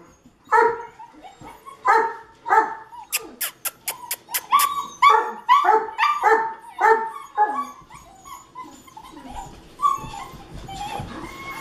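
Seven-week-old German Shepherd puppies barking in short, high yips, about two a second, with a quick run of clicks around three to four seconds in. After about eight seconds the barking gives way to softer whining.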